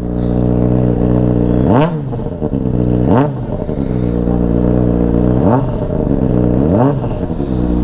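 Honda CBR600RR inline-four with a Yoshimura slip-on exhaust idling, then blipped four times on the throttle. Each rev climbs sharply and drops straight back to idle, very loud.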